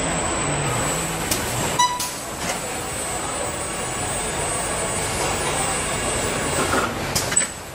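Car assembly-line machinery running: a steady industrial hum with a constant high-pitched whine and a few metallic clanks, plus a short beep about two seconds in.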